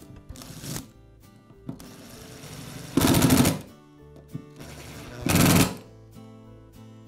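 Cordless drill/driver running in short bursts as it drives the screws that hold the plane-bearing plates on a reciprocating saw's gear housing, the two loudest bursts, about 3 and 5 seconds in, a rapid clicking rattle. Background music plays underneath.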